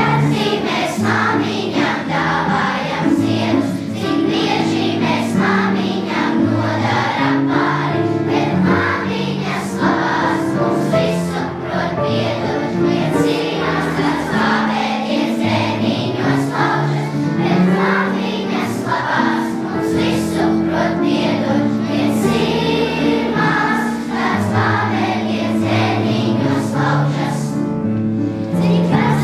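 A children's choir singing a song, continuous through the whole stretch.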